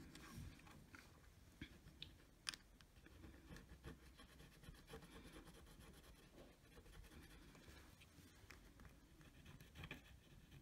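Faint scraping of a plastic razor blade along the metal heat-spreader lid of a delidded Intel i7-8700K, working the old black silicone adhesive off its edge, with a few light clicks about two seconds in.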